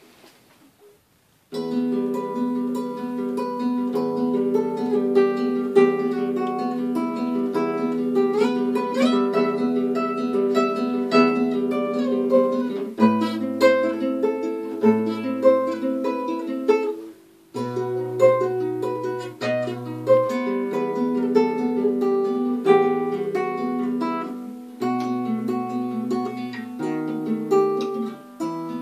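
Acoustic guitar plucked note by note: a repeating melody over low bass notes. It starts suddenly about a second and a half in, stops briefly around the middle, then goes on.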